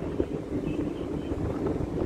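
Strong wind buffeting the microphone over the steady low rumble of a ship's engine during berthing.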